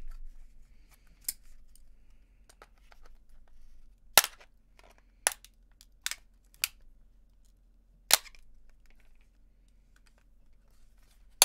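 Plastic case of an HP MU06 laptop battery pack cracking as it is pried apart with pliers: about half a dozen sharp, separate snaps spread over several seconds, the loudest around four and eight seconds in.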